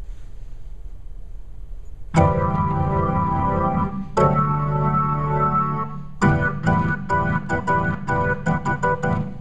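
Electronic keyboard with an organ-like tone: two held chords of about two seconds each, then a quick run of about a dozen short, detached notes.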